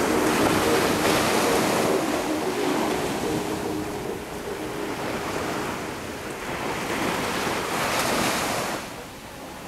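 Small ocean waves breaking and washing up the sand in shallow surf, the rush swelling about a second in and again, louder, near the end before falling away.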